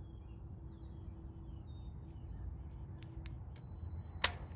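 Quiet outdoor background of low rumble with small birds chirping faintly, and a single sharp click a little after four seconds in.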